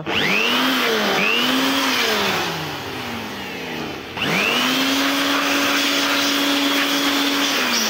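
Electric hand-held air blower blowing dust off a charger's circuit board: its motor whine and rush of air run up to speed and waver, then wind down. About four seconds in, the blower starts again, holds steady, and begins to slow near the end.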